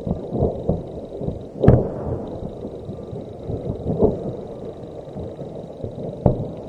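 Stored ammunition exploding in a warehouse fire: a rumble of distant blasts and pops, with the loudest bangs about two seconds in, about four seconds in and just after six seconds.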